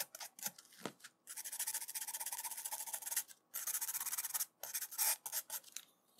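Fiberglass scratch pen scrubbing the metal contact pins of a chip module to scrape off corrosion and get down to clean metal. It goes in quick short strokes at first, then two spells of fast back-and-forth scrubbing with a short pause between, and a few last strokes.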